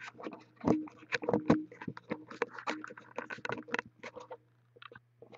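Handling noise from the camera being moved and repositioned: a rapid, irregular run of knocks, taps and scrapes that stops about four and a half seconds in, over a steady low electrical hum.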